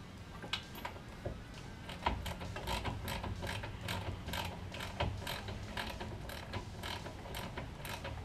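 Hand socket ratchet clicking as it turns a nut on the rear sway bar link. The clicks come in a steady run of about three a second, starting about two seconds in.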